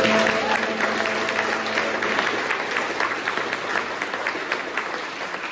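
Audience applauding, many hands clapping, while the last held note of the music fades out about two seconds in; the clapping slowly dies down.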